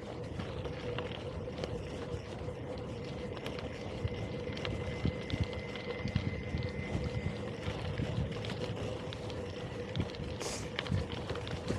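Gravel bike rolling over a rough track: a steady hum under tyre noise, with frequent small knocks and jolts from the bumps.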